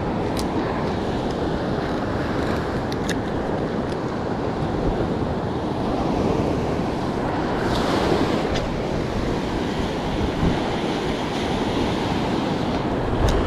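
Surf breaking and washing up the beach, with wind buffeting the microphone and a few faint clicks.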